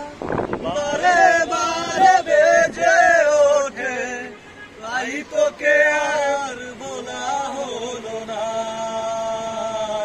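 A man singing a Bengali song with music, the melody gliding between notes and ending on a long held note near the end.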